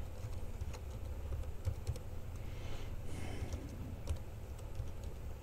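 Computer keyboard being typed on: an irregular run of light key clicks as text is entered.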